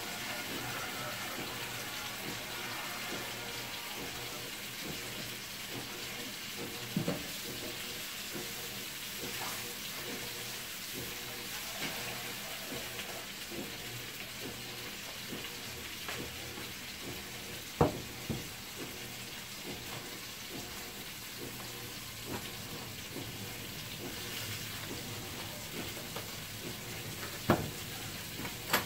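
Butter sizzling in a hot pan, a steady hiss, with a few sharp knocks of cookware along the way.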